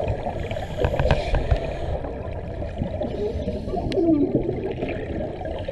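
Underwater sound of scuba divers' exhaled air bubbling from their regulators: a dense gurgling and rumbling, with wavering muffled tones and a few small clicks.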